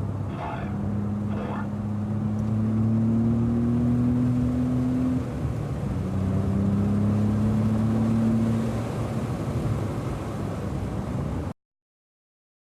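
BMW 335i's twin-turbo inline-six pulling hard under acceleration, its pitch climbing slowly, then dropping abruptly about five seconds in as it shifts up a gear, and climbing again through the next gear before easing off. The sound cuts off suddenly near the end.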